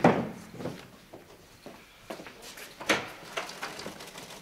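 A sharp knock right at the start, then a few scattered footsteps and light knocks on a hard floor from about two to four seconds in.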